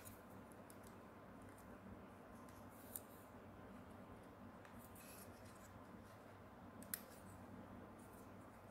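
Near silence with faint handling of a 3D-printer print-head module and its circuit board, with two small clicks, one about three seconds in and one about seven seconds in.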